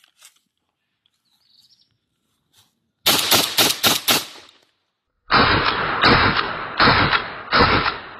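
Hunt MX4 Tactical semi-automatic shotgun firing two strings of rapid shots. The first is about five shots in barely over a second, about three seconds in. The second is about five more, a little under a second apart, starting about five seconds in.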